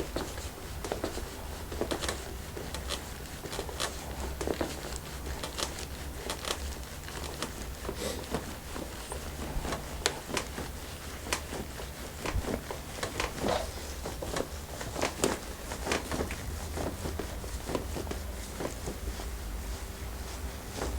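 Massage sounds: hands rubbing and pressing on skin and fabric, making irregular soft rustles and small clicks over a steady low hum.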